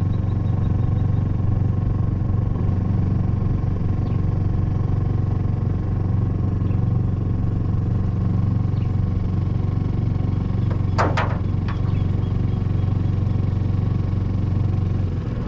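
Boat outboard motor running at a steady speed, a constant low hum that drops away right at the end. A brief sharp noise cuts in about eleven seconds in.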